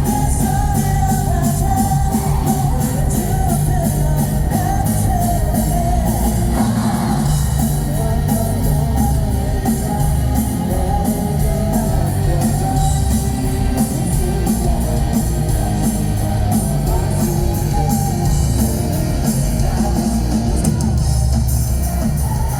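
Live rock band playing through a festival PA: drums keeping a steady beat under electric guitar, with a lead vocal singing over them.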